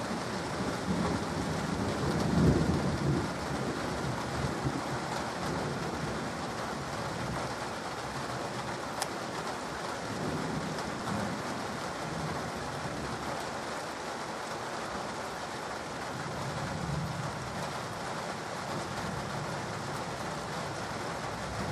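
Steady rain falling through a thunderstorm, with low rumbles of thunder: the loudest about two and a half seconds in, and softer rolls around ten and seventeen seconds.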